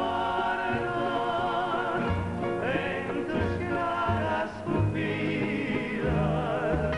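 Male vocal group singing long, wavering notes in harmony, with a bass line moving beneath.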